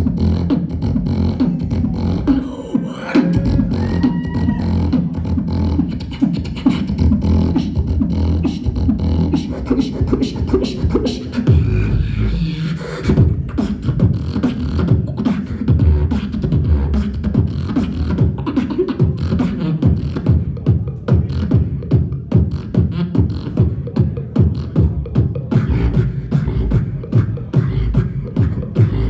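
Solo beatboxing into a handheld microphone over a PA: a fast, unbroken run of drum-like kick and snare sounds over sustained low buzzing bass tones.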